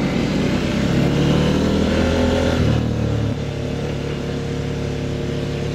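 CFMOTO 800MT Explore's 799 cc parallel-twin engine running under way at steady revs. About halfway through, its note shifts and becomes a little quieter.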